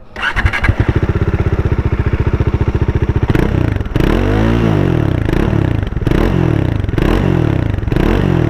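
Bajaj Dominar 400's single-cylinder engine through its twin-outlet exhaust, idling with an even thump for about three seconds. It then takes a series of quick throttle blips, about one a second, each revving up and dropping back.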